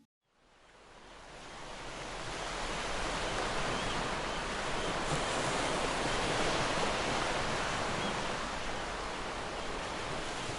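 Sea surf washing onto a beach: a steady rushing noise that fades in from silence about half a second in and swells over the next few seconds.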